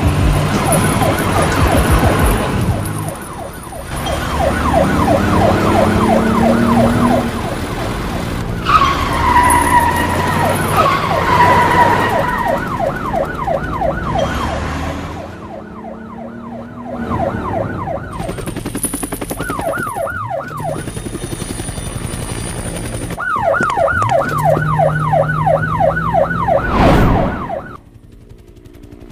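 Police siren on a moving vehicle yelping in a fast rise-and-fall wail, about four cycles a second, over engine noise. A held squeal sounds from about nine to twelve seconds in, and a sudden sweep near the end is followed by a much quieter stretch.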